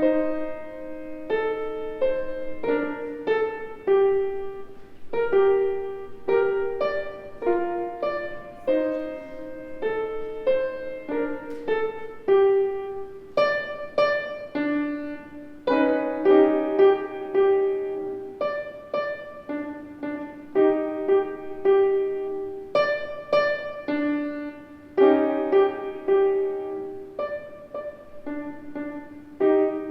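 Piano played by a young child: a simple children's piece, separate notes in the middle of the keyboard in short phrases with brief pauses between them.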